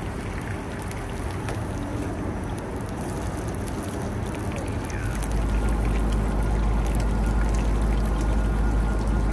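Fish patties sizzling in peanut oil in a skillet on a camp stove, with the heat just turned up. About five seconds in a low rumble joins and the sound gets louder.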